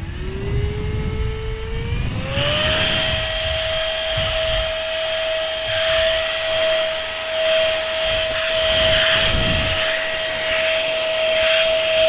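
Lubluelu 008 cordless stick vacuum switched on: its motor whine climbs in pitch, settles higher about two seconds in and then holds steady. The rush of air through the crevice tool rises and falls as the nozzle works over the car's floor carpet.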